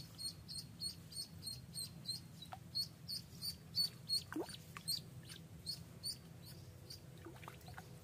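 A duckling tethered on a fishing line as live bait, peeping repeatedly with short high chirps at about three a second.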